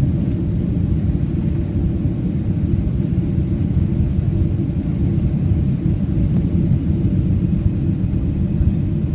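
Steady low rumble of a Boeing 767-300's engines and rushing air, heard inside the cabin over the wing on final approach with the flaps extended.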